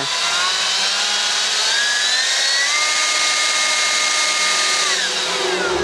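DeWalt DCBL720P1 20V brushless handheld leaf blower running under its variable-speed trigger: a motor whine over rushing air climbs in pitch as it speeds up over the first few seconds, holds steady, then falls near the end as it winds down.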